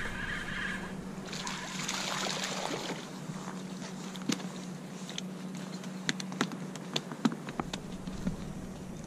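Spinning reel whirring briefly as the line is cranked in, then water splashing as a small fluke is swung up out of the water. After that comes a string of sharp slaps and taps as the fish flops on the wooden dock.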